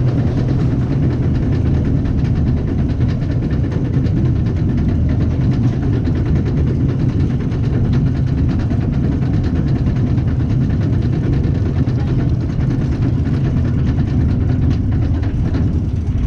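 Reverchon spinning roller coaster car being hauled up its chain lift hill: a steady mechanical rumble from the lift, with faint regular clicking in the last few seconds as the car nears the crest.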